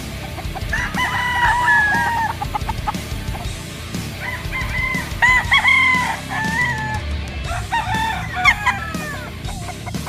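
Gamecocks crowing and clucking in three separate bouts of calls.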